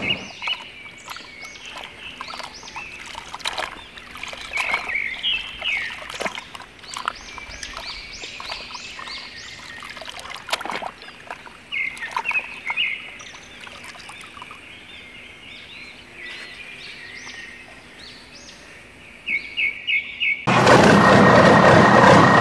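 Small birds chirping in repeated short series, with scattered splashes and sloshing of muddy water as a plastic toy is handled in a puddle. About twenty seconds in, a loud steady noise with a steady whine cuts in abruptly.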